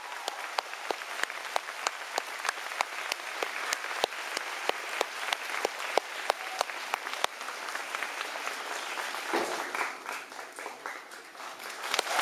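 Theatre audience applauding, with one nearby pair of hands clapping steadily at about three claps a second over the crowd. The applause thins and quietens about nine seconds in.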